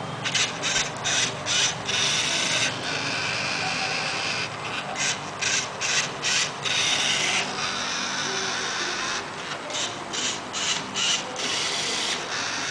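LEGO Mindstorms NXT servo motors whirring through their plastic gears as a Rubik's cube solving robot moves its light-sensor arm and turns the cube while scanning the faces. The motors run in groups of short bursts, about two a second, between longer steady runs.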